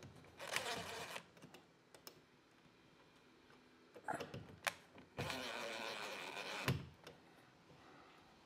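DeWalt cordless drill-driver running to drive the ground-wire screw into a metal ceiling electrical box. There is a short run about half a second in, a few clicks around four seconds, then a steady run of about a second and a half.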